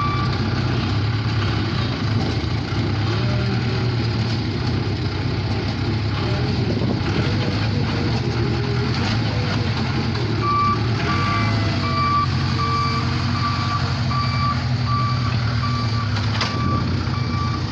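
Case 580K backhoe's diesel engine running steadily. About ten seconds in its reverse alarm starts beeping, an even series of single-pitched beeps about one and a half a second, as the machine backs up.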